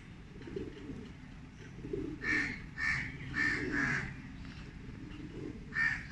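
Birds calling: a run of four or five short, loud calls about half a second apart from about two seconds in, with another call near the end. Low cooing of pigeons runs beneath.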